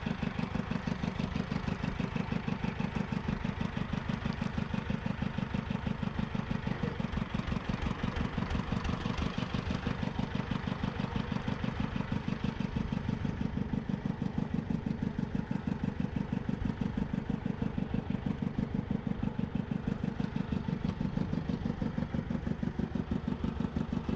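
Fishing boat's engine idling, a steady rapid thudding at about five beats a second.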